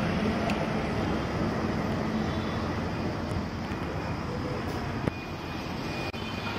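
Petrol pump dispenser running as it fills a car's fuel tank: a steady low hum under a rushing hiss, with a single click about five seconds in.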